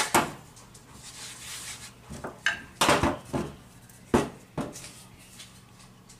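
A few short, sharp knocks and taps on a floured board as a ball of chebureki dough is pressed flat by hand and a wooden rolling pin is brought down onto it. The knocks are clustered in the middle, with one at the very start.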